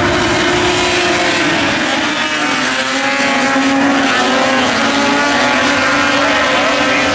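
Several dirt-track race car engines running hard together on the track, their pitches rising and falling as the cars accelerate and back off.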